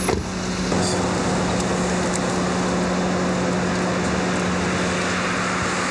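Steady hum of an idling vehicle over a broad, even rushing noise.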